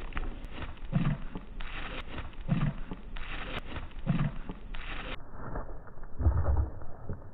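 Chocolate Labrador's paws thudding on the grass as it lands from repeated leaps after a ball: four dull thumps about a second and a half apart, the last the heaviest, over a steady rustling hiss.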